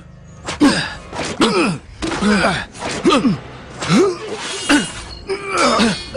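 A sword fight: men's short, strained grunts and shouts of effort, about one every 0.7 s, each falling in pitch, mixed with sharp hits and clashes of blades.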